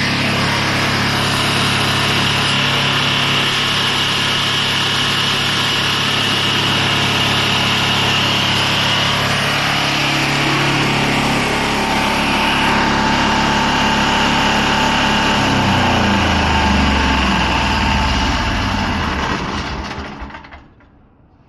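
Engine of a remote-controlled tracked slope mower running steadily, then slowing with a falling pitch near the end and stopping as it shuts down.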